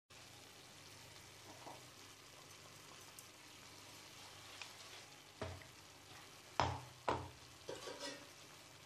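Bottle gourd faintly sizzling in a frying pan, with a few sharp knocks of a cooking utensil against the pan in the second half.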